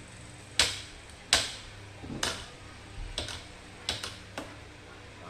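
About six sharp mechanical clicks and knocks at irregular spacing, the two loudest near the start, from the homemade battery spot welder's spring-loaded welding head being worked by hand on its ball-bearing slide, with the welder unpowered.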